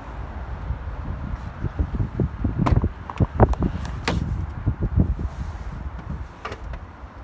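Truck cab door opened, with a cluster of sharp clunks and knocks a few seconds in as someone climbs up into the cab, over low rumbling handling noise.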